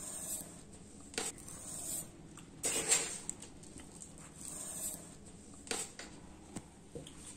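Granulated sugar poured from a spoon onto a heap of flour, spoonful after spoonful: a series of short gritty rustles, each a second or so apart.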